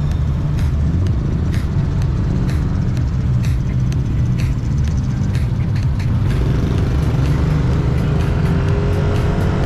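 Yamaha NMAX 155 scooter on the move, its single-cylinder engine running under a heavy wind rumble on the mounted camera's microphone, with scattered short clicks. From about six seconds in, a whine comes up, rising slightly and then holding steady.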